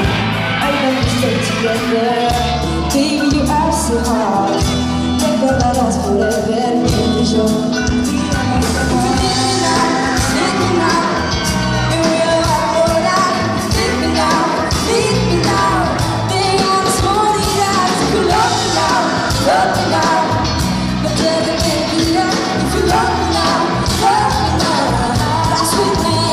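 Loud live pop music: a male singer's amplified vocals over a full band with drums, heard from among the audience.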